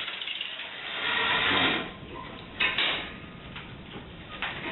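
Home-built compressed-air engine driving a cart on air supplied at 300 psi, its exhaust hissing with a strong surge about a second in and a short burst just before three seconds, then running quieter.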